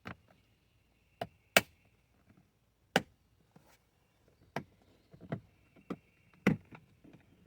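Plastic trim clips snapping and clicking as a car door trim piece is pried outward: about eight sharp, uneven snaps.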